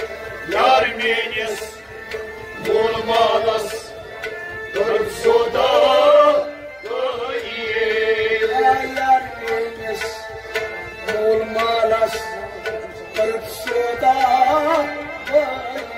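Kashmiri Sufi song performed live: a male voice sings in phrases over a steady harmonium drone, with hand drums keeping a rhythm.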